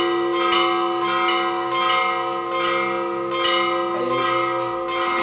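Church bells ringing, struck again and again, their tones ringing on between strokes.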